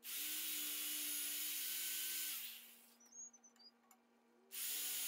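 Handheld corded electric drill running at speed with a steady whine, its bit boring a hole through a steel plate. It winds down about two and a half seconds in and starts up again near the end.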